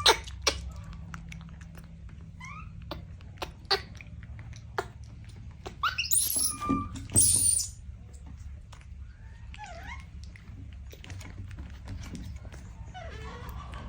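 Baby monkey giving two loud, very high-pitched squeals about six and seven seconds in, then a few short gliding calls, among scattered clicks and knocks.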